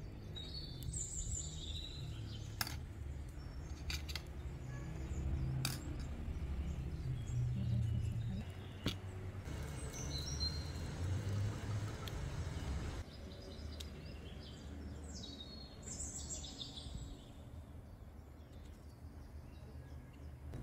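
Birds chirping now and then over a steady low outdoor rumble, with a few sharp clicks.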